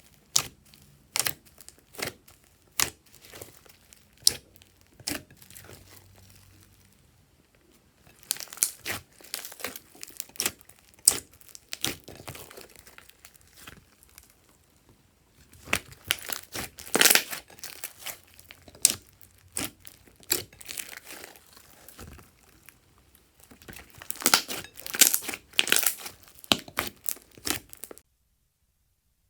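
Crinkling and crackling from slime-making materials being handled, with many sharp pops and clicks coming in four bursts separated by short lulls. It cuts off abruptly about a second before the end.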